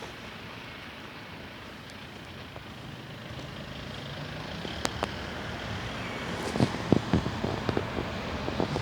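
Steady outdoor background noise like distant road traffic, slowly getting louder, with a series of sharp clicks or knocks in the last two seconds.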